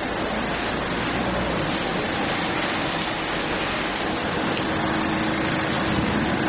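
Steady rain falling, an even hiss with a faint low hum underneath, which cuts off abruptly at the end.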